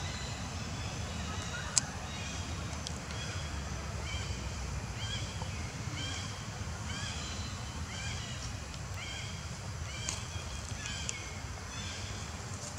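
An animal calling over and over, short arched high calls about one a second, over a steady low rumble. A single sharp click about two seconds in.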